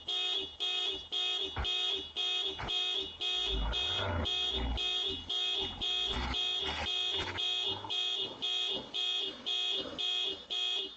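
Car alarm sounding: a rapid, even beeping of one harsh tone, about two to three beeps a second.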